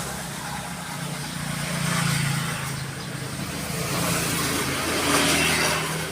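Motor vehicle noise: a steady low engine hum, with a rushing sound that swells and fades three times.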